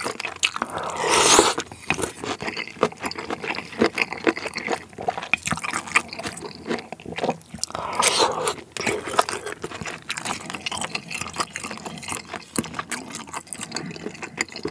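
Close-miked eating of jjamppong: slurping noodles and broth and wet chewing, with louder slurps about a second in and again about eight seconds in.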